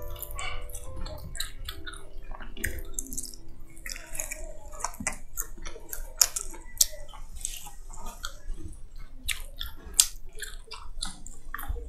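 Close-miked eating sounds: wet chewing and crunching of the chicken salad, with many irregular sharp clicks and smacks.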